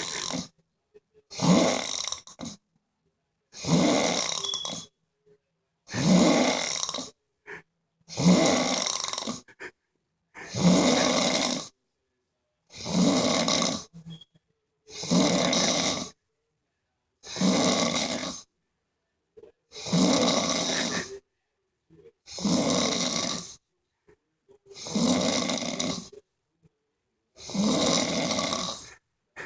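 A person snoring: one loud snore on each breath, about a second long, roughly every two seconds, with quiet between.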